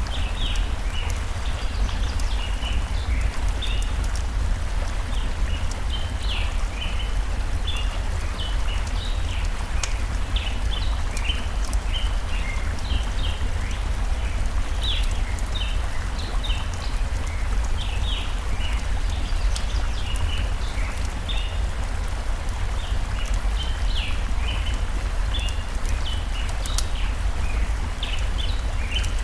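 Stream flowing with a steady low rush, under many quick, high bird chirps that go on throughout. A few sharp crackles of a campfire pop through now and then.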